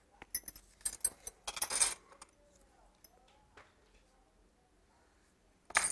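Bangles on the wrist clinking and jingling, with light clicks and rustles of the cloth and measuring tape as hands work on the fabric. It comes in short bursts during the first two seconds, turns nearly quiet, then a louder clatter comes near the end.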